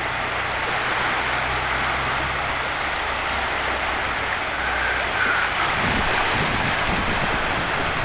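Shallow surf washing in, a steady rush of small waves, with wind gusting on the microphone in the second half.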